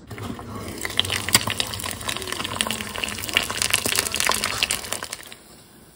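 Eggs frying in hot oil in a frying pan, sizzling with dense crackling and spitting. It stops a little over five seconds in.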